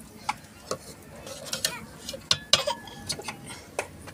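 Steel ladle stirring kachnar buds in water in an aluminium pot, clinking and knocking against the pot at irregular moments, with a brief metallic ring about two seconds in.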